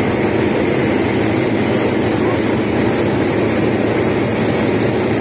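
Heavy diesel road-paving machinery running with a steady drone while the road's final bitumen coat is laid.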